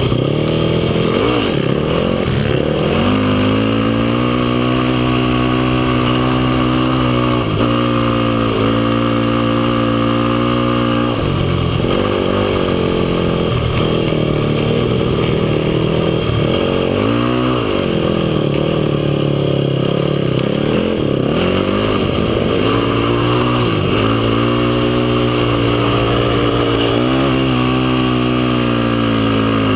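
Yamaha YFZ450 quad's single-cylinder four-stroke engine running hard through the sand, its pitch dropping and climbing back several times as the throttle is eased and opened again.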